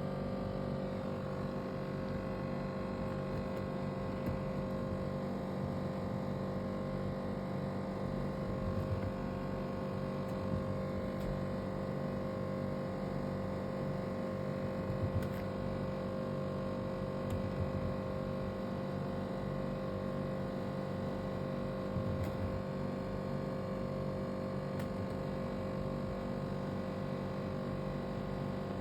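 A steady electrical hum with several fixed tones, and a few faint soft knocks here and there.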